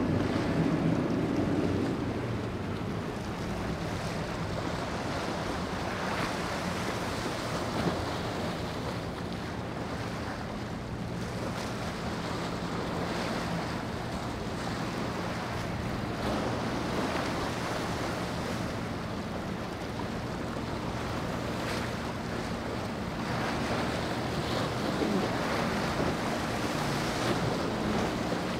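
Wind on the microphone over waves washing on rocks, with the steady low drone of boat engines running.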